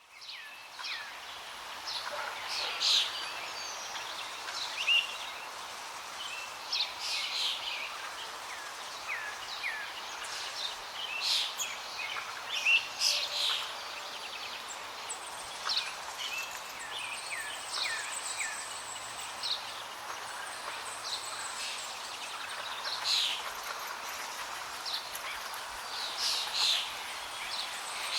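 Flowing water as a steady rush, with many birds chirping and calling over it throughout. It fades in from silence at the very start.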